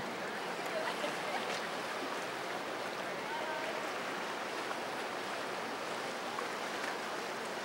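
Steady rush of water: waves in the inlet and the wake of a passing motor yacht, an even wash with no distinct events.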